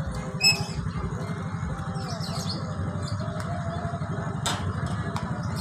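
A motorcycle engine idling with a steady low putter. A sharp, ringing metal clank comes about half a second in as the manual crossing boom barrier is pulled down, and birds chirp faintly.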